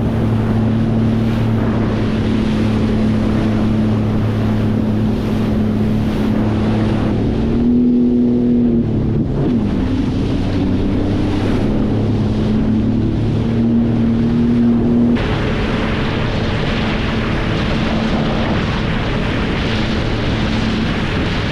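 Sea-Doo GTX 230 jet ski engine running at speed through rough swells, with heavy wind rushing on the microphone and spray. The engine note jumps up and drops back about eight seconds in and again around fourteen seconds, and the rush of wind and water grows louder after that.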